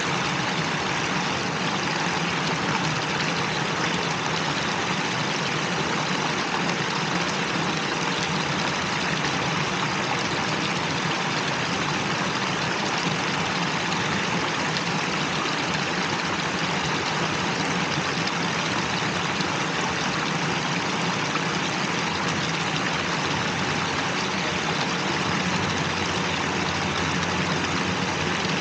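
Small fountain water jets splashing steadily into a stone basin, an even rushing hiss with a faint low hum beneath.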